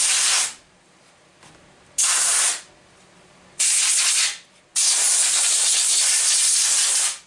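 Aerosol can of non-chlorinated brake parts cleaner spraying through its straw in hissing bursts onto a small engine part. One spray ends about half a second in, two short ones follow, and the last and longest runs about two and a half seconds.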